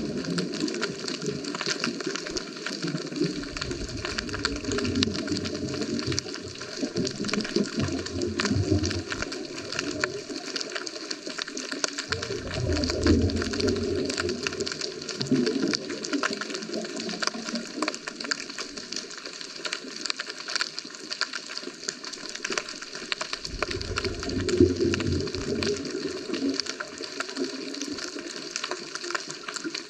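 Underwater sound heard through a GoPro's waterproof housing: a scuba diver's exhaled bubbles gurgling out of the regulator in three long bursts, about ten seconds apart, over a steady faint crackle of the water.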